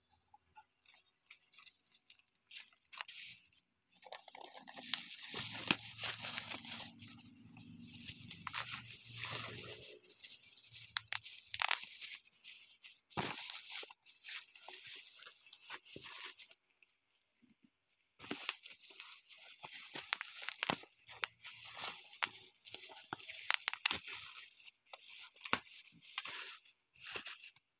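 Bubble wrap and plastic packaging crinkling, crackling and tearing as it is pulled off a cardboard box, in stops and starts with sharp crackles.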